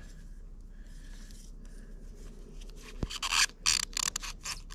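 Metal track hinge plate being worked by hand onto the end of a rubber track belt: a click about three seconds in, then a run of short scrapes as the plate rubs against the belting.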